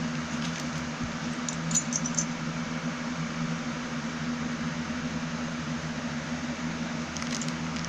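Steady low machine hum over a constant hiss, with a few faint light clicks about two seconds in and again near the end.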